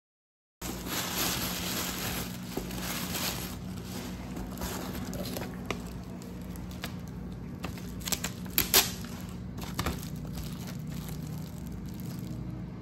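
Clear plastic wrapping crinkling and rustling as wrapped items are handled and lifted out of a cardboard box, with a few sharper crackles about two-thirds of the way through.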